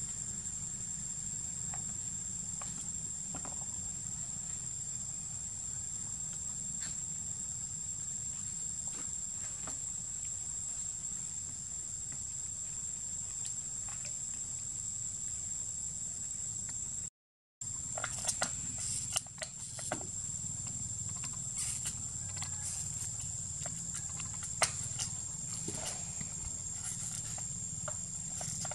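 Steady high-pitched drone of insects, with scattered sharp clicks and crackles of a plastic water bottle being handled and gnawed by a macaque, mostly in the second half.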